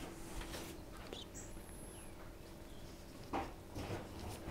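Injured baby vervet monkey giving a faint, very high squeak about one and a half seconds in, amid quiet rustling of a towel and gloved hands, with a louder short rustle near the end.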